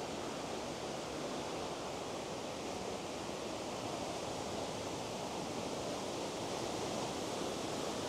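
Waterfall: a steady, even rush of falling water, thunderously loud.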